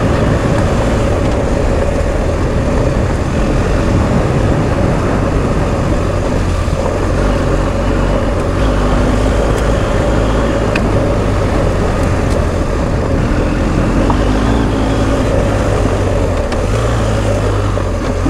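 BMW R1250 GS Adventure's 1254 cc boxer-twin engine running steadily under way on a dirt track, mixed with a continuous rush of wind and riding noise.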